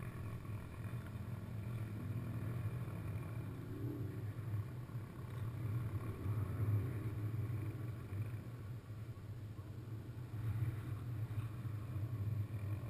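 Steady low motor hum.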